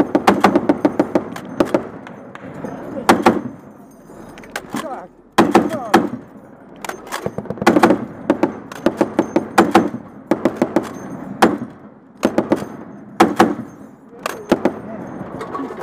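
M2 .50 calibre heavy machine gun firing in short bursts of a few rounds each, about a dozen bursts with pauses of a second or so between them.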